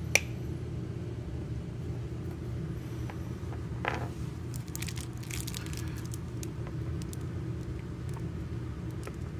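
A steady low hum runs throughout, with scattered light clicks and taps of small hard plastic action-figure parts being handled and pressed together.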